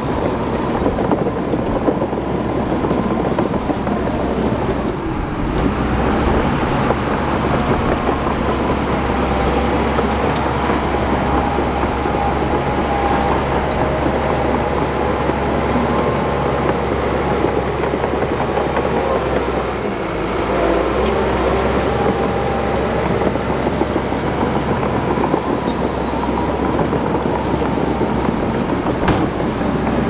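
Shantui crawler bulldozer's diesel engine running steadily under load as it pushes dirt, with a low drone and a slightly wavering engine note.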